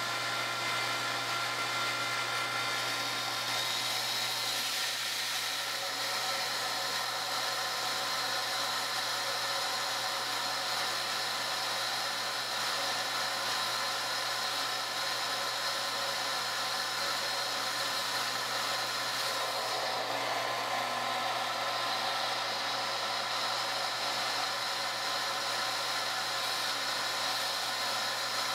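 Small electric centrifugal pump running steadily, a whine over an even hiss, as it circulates water through a clear reservoir. Its control valve is opened to force the pump to cavitate, filling the water with fine air bubbles.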